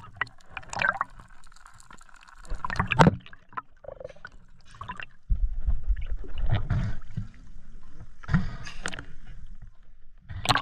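Water splashing and gurgling in irregular bursts, with a low rumble from about halfway through.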